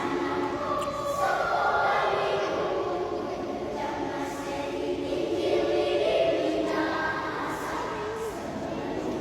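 Small choir singing, several voices in harmony holding long notes that shift between chords.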